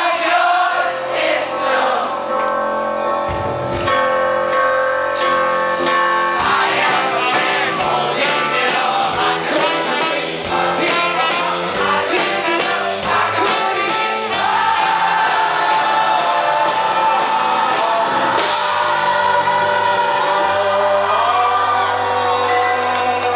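Live rock band performance: a male lead singer over drums and guitars, heard from the audience in a large hall.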